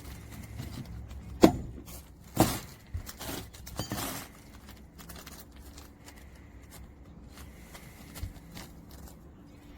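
Roofing nail being struck into an asphalt shingle: a handful of sharp knocks in the first four seconds, the first the loudest, then only faint taps.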